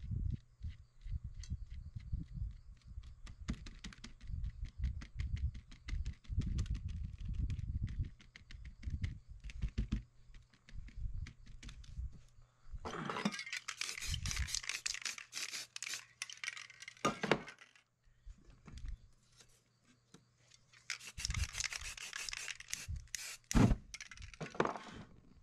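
A crumpled rag dabbed and rubbed against a canvas, many soft thumps and scrapes. Then an aerosol spray paint can hissing in two long bursts of about four seconds each, one around halfway and one near the end.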